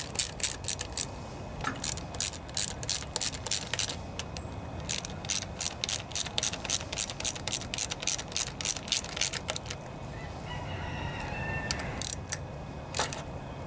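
Hand socket ratchet clicking in quick runs of strokes as a fastener is turned, about four or five clicks a second, with a pause in the middle and a few single clicks near the end.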